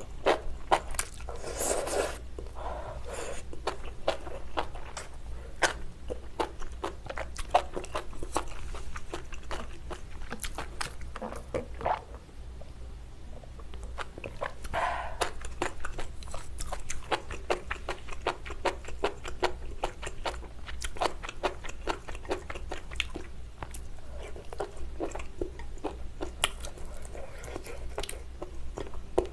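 Close-miked eating sounds: slurping noodles and broth of spicy mala tang at the start, then steady chewing with many small wet mouth clicks, and a sip from a drink about halfway through.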